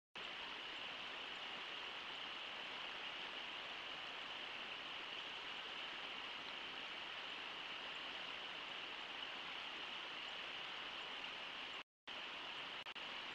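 Brooks River rushing over shallow riffles: a steady hiss of running water. It cuts out for a moment near the end.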